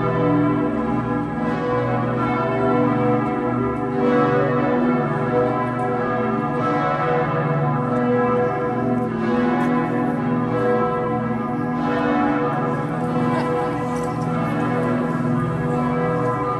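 Several church bells ringing together in a full, overlapping peal, with a fresh strike standing out about every two and a half seconds.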